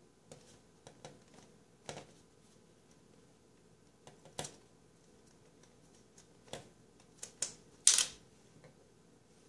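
Plastic drain fittings of a flexible P-trap being handled and pushed together: scattered clicks, taps and brief rubs, the loudest a short scrape near the end.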